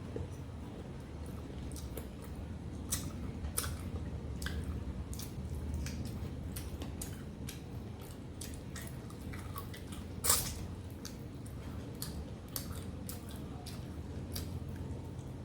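Close-up eating sounds of rice and mutton curry: wet, squishy chewing and mouth clicks over a steady low hum, with one sharper click about ten seconds in.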